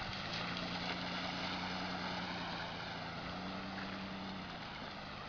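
Mitsubishi Montero Sport SUV engine running steadily as it drives off through shallow water, under a steady hiss of water being pushed aside; the engine grows slightly fainter as it moves away.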